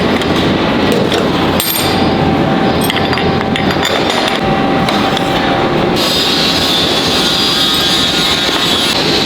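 Metalworking machinery running steadily, with a few metallic knocks in the first half and a hiss coming in about six seconds in.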